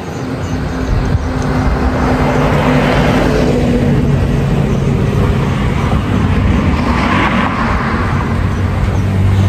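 Road traffic: a motor vehicle engine drones steadily, growing louder over the first second or two, with tyre noise swelling as vehicles pass about three and seven seconds in.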